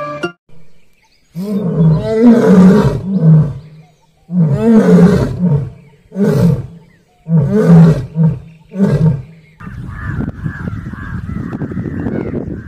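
Asiatic lion roaring: a bout of deep, loud calls, the first ones long, then shorter grunting calls coming quicker, ending about nine seconds in. A steady noisy background follows.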